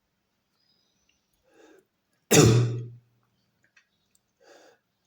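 A person coughing once, a single loud, sudden cough about two and a half seconds in, with faint short sounds before and after it.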